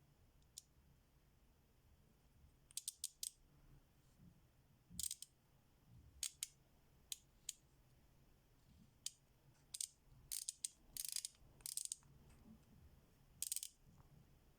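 FELO Ergonic K ratchet's pawl mechanism clicking: sharp, high-pitched clicks, sometimes single and sometimes in quick runs of two to four, as the handle is swung back and forth in short, irregular strokes.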